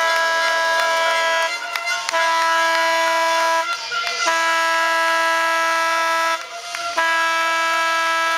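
Arena horn sounding a multi-tone chord in four long blasts with short breaks between them, marking the end of the game.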